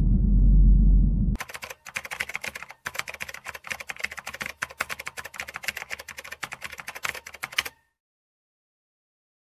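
Low droning music cuts off about a second in, then a long run of rapid typewriter key clicks, likely an edited typing effect, which stops abruptly near the end.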